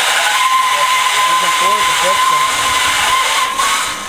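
Corded electric drill spinning an abrasive disc against rusty steel, a steady motor whine over a grinding hiss as it strips surface rust. The sound eases off briefly near the end.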